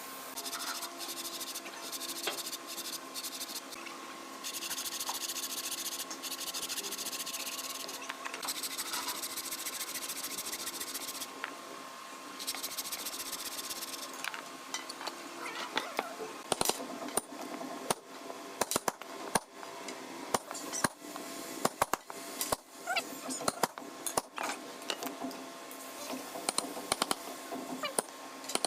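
Hand-tool work on wood: repeated scraping strokes in the first half, then a run of quick, sharp knocks and taps, over a faint steady hum.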